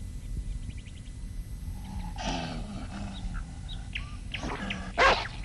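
Cartoon dog growling, starting about two seconds in, with louder, sharper snarls near the end.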